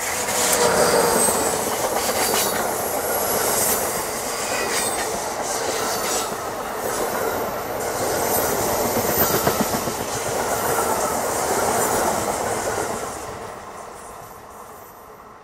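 Amtrak AEM-7 electric locomotive and its Amfleet coaches passing close by at speed: steady, loud wheel-on-rail noise as the cars go by, fading away over the last couple of seconds as the rear cab car recedes.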